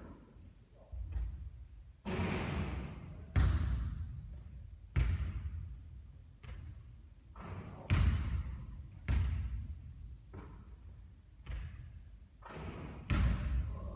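Basketballs bouncing on a court during repeated three-point shooting: about ten thuds, roughly one every second or so, each fading off, a few with a short high ring.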